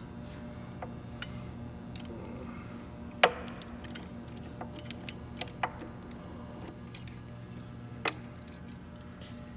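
Metal gearbox parts and tools clinking and knocking as they are handled, with a sharp metallic clank about three seconds in and another near the end, over a steady low hum.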